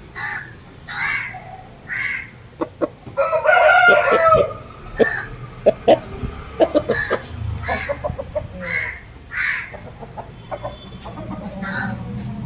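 A rooster crows once, about three seconds in, in a call lasting over a second. Short, repeated bird calls go on around it, and there are several sharp clicks in the middle.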